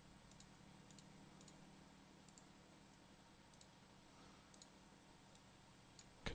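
Near silence: a faint low hum with scattered faint computer-mouse clicks, about ten of them.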